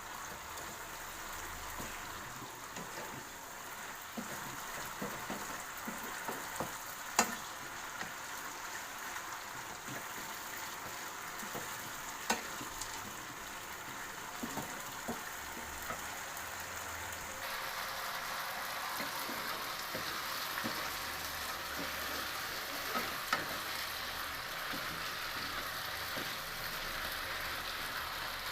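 Food sizzling as it fries in a pan, with a utensil now and then clicking against the pan as it is stirred. The sizzle turns louder and brighter about two-thirds of the way through.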